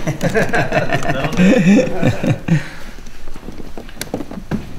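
Indistinct talking, with a few sharp clicks about four seconds in as hands work a wire connector under the kayak's side rail.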